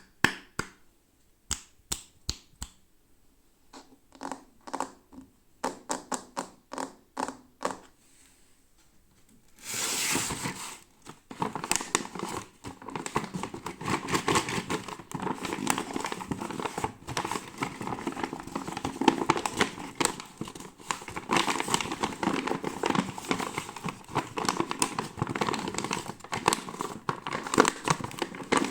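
Close-up unboxing of toy packaging. For the first ten seconds or so there are sharp, separate taps and clicks, then dense, steady crinkling and tearing of the packaging.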